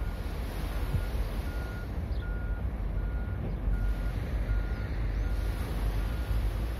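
Reversing alarm of an unseen vehicle beeping: about nine short, even beeps at one pitch, a little under one and a half a second, stopping near the end. Under it is a steady low rumble.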